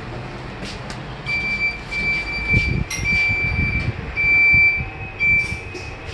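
Electronic beeper in a passenger lift car, sounding a high tone in five or six irregular beeps of differing lengths over the low hum of the car, with a few dull handling thumps.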